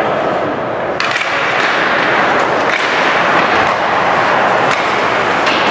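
Ice hockey game in play: skates scraping the ice and sharp clacks of stick and puck, about a second in and again near the end, over a steady arena din.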